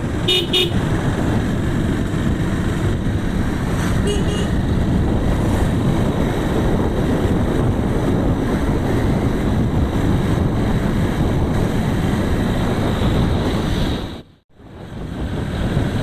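Steady wind and engine noise of a motorcycle riding along a road, with two short vehicle horn toots, one just after the start and one about four seconds in. The sound cuts out briefly about fourteen seconds in.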